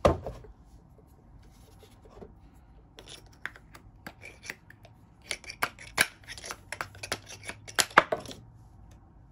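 Hole saw being turned by hand on the threads of its arbor: a sharp click at the start, then irregular small metallic clicks and scrapes for the second half, the loudest a little before the end.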